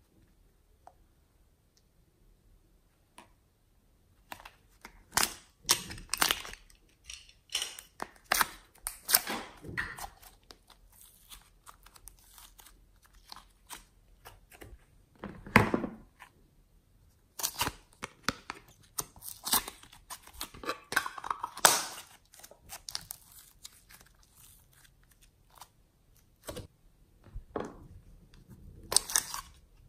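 Fingers pressing and poking soft, thick slime in a glass tray, making irregular sharp crackling and popping clicks from trapped air. A louder, deeper squelch comes about halfway through. The first few seconds are almost silent.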